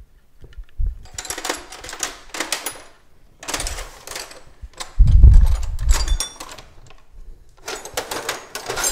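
Metal hand tools clinking and rattling in irregular bursts, as if someone is rummaging through tools, with some ringing metallic clinks and a heavy low thud about five seconds in.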